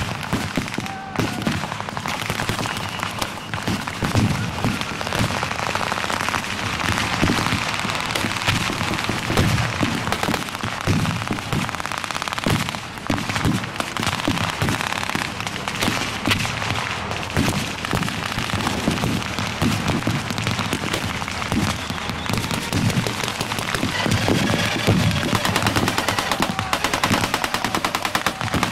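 Battle-reenactment blank gunfire: a constant crackle of rifle and machine-gun shots, ending with a long, rapid machine-gun burst near the end.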